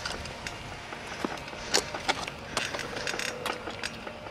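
A bicycle being ridden: irregular clicks, ticks and rattles from the bike over a steady rush of moving air, picked up by a camera swinging on the rider's neck.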